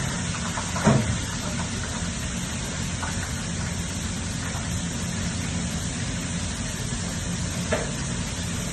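Steady hum and hiss of kitchen background noise, with two brief clatters, one about a second in and one near the end.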